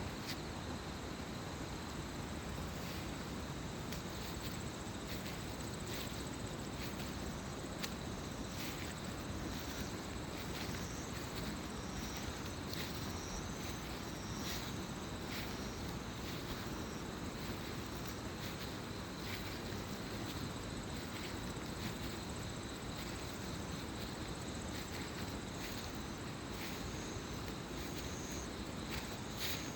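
Mountain stream rushing steadily, with crickets giving short high chirps at intervals over it.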